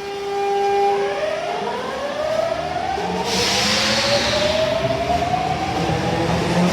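Osaka Metro Tanimachi Line 22 series train (car 22619) pulling away, its VVVF inverter-driven traction motors whining in several rising pitches as it accelerates. A steady tone sounds in the first second, a hiss about three seconds in, and the low rumble of running gear builds underneath.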